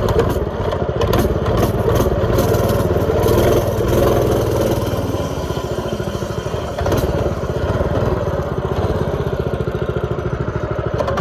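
X1 pocket bike's small two-stroke engine running continuously as the bike is ridden, with a fast, buzzing beat that eases off briefly about six to seven seconds in before picking up again.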